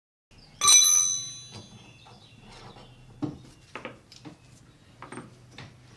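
A steel hand tool clangs sharply against metal about half a second in and rings for about a second, followed by several lighter knocks and clicks of spanner and socket bar on the lawn tractor's steering linkage.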